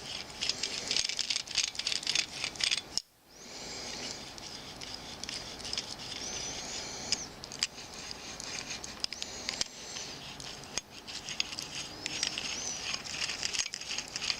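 Irregular clicks and light rattles of small metal parts being handled, from a small vise built from Actobotics robot-kit parts, with a brief drop-out about three seconds in.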